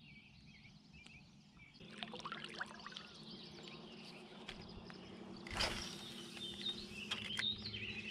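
Birds calling over open water, with a low steady hum that comes in about two seconds in and a single brief knock a little past halfway.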